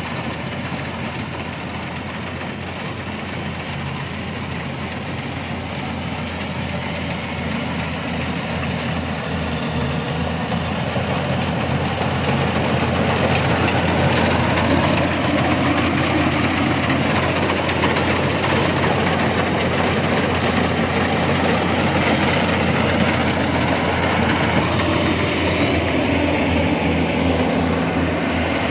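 Yanmar rice combine harvester running steadily while cutting standing rice: its diesel engine and harvesting machinery make a continuous hum that grows louder about halfway through and then holds.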